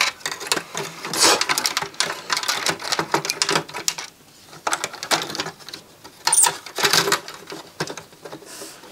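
Clicks and rattles of circuit boards and plug connectors being handled and fitted back into a Denon DCD-F100 CD player's sheet-metal chassis, in two flurries with a short lull about four seconds in.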